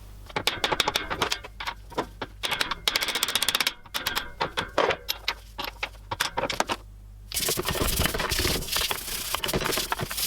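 Quick, irregular scraping and clicking of hand tools on rusty metal parts, with a steadier hiss taking over about seven seconds in.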